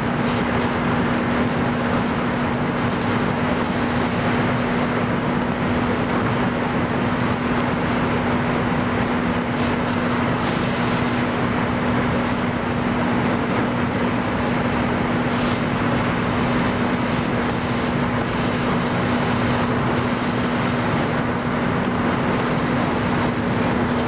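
Car driving, heard from inside the cabin: steady road and engine noise with a constant low hum.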